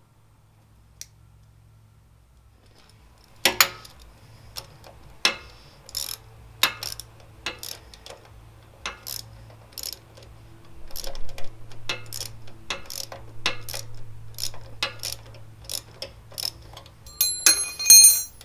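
Irregular sharp metallic clicks and taps of hand tools and small metal parts being handled while working on a motorcycle clutch cable, over a low steady hum. Near the end comes a brief cluster of ringing metallic clinks.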